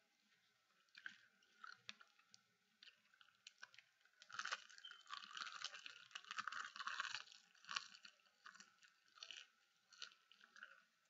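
Thin, crisp seasoned seaweed snack crackling as it is bitten and chewed, densest from about four to seven seconds in, with scattered small crackles and clicks either side.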